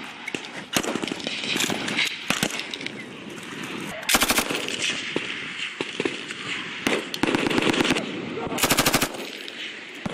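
Belt-fed 5.56 mm M249 light machine gun firing short automatic bursts, the two loudest about four seconds in and near the end, each about half a second, with scattered single shots and other gunfire between them.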